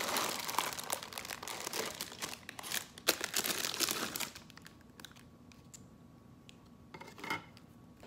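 Plastic cracker wrapper crinkling as crackers are pulled from their box and sleeve, for about the first four seconds. Then it goes quieter, with a few light clicks as crackers are set down on a plate.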